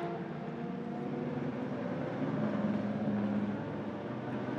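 Ferrari 599XX's V12 engine running at low, steady revs as the car rolls slowly down the pit lane, its note growing a little stronger partway through.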